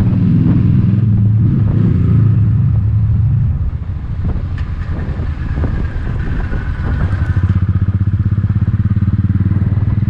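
Motorcycle engine running under way, loud and steady at first while riding inside a road tunnel. About three and a half seconds in it drops quieter, then rises again with a fast even pulse about seven and a half seconds in.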